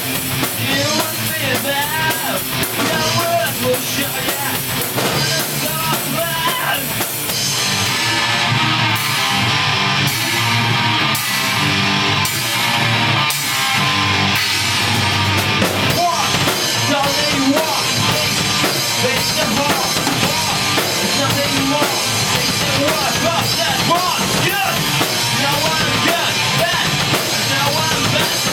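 Punk rock band playing an instrumental passage on electric guitars, bass and drum kit. About seven seconds in, the drums shift to a heavy cymbal-washed section that runs for several seconds before the busier playing returns.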